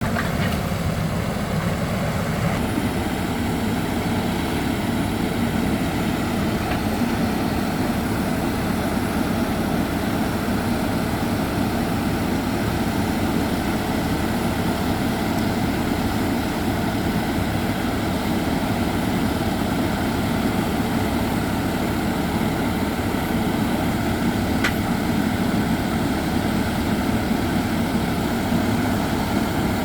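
Heavy rock-drilling rig boring into reinforced concrete, running as a steady, dense mechanical drone with no pauses.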